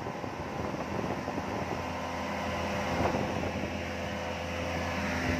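Speedboat's outboard motor running steadily at cruising speed, a steady hum under rushing wind and water.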